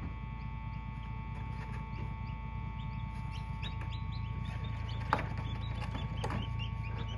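Newly hatched chicks peeping in an incubator: short rising peeps, scattered at first and more frequent in the second half, over the incubator's steady hum. A single sharp knock about five seconds in.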